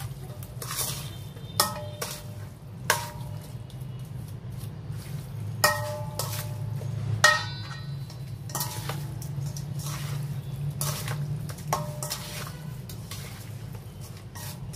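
Metal spoon and chopsticks clinking and scraping against a stainless steel mixing bowl as marinated meat is stirred. The sharper knocks leave the bowl ringing briefly, and a steady low hum runs underneath.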